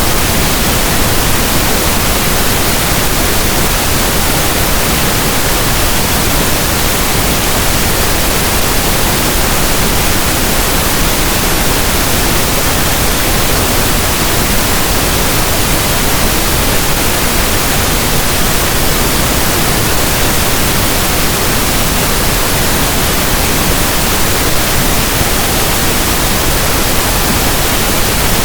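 Steady pink noise: an even hiss like static from a radio that is not tuned to a station.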